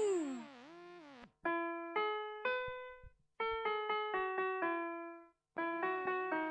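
2005 VTech Winnie the Pooh ABC honey pot toy playing a short electronic tune in electric-piano-like tones, in three brief phrases with short pauses between them. A falling tone dies away at the start. The toy's sound runs a little lower in pitch than it should.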